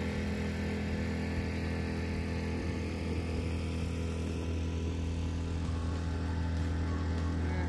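A boat's outboard motor running steadily under way, a low even hum over a broad rush of wind and water.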